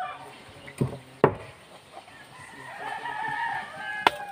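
A knife knocking sharply on a wooden cutting board while stonefish are cut: twice about a second in, and once near the end. A rooster crows once in the middle, one drawn-out call of about a second and a half.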